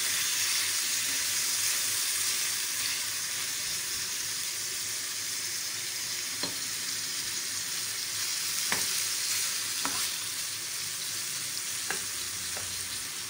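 Tomato slices sizzling in hot oil in a frying pan, a steady hiss, with a few sharp clicks of a spatula against the pan in the second half.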